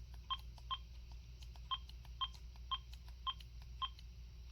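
Cordless phone handset keypad tones: seven short two-tone beeps about half a second apart, one for each button press while stepping through the phone's settings menu, with fainter button clicks between.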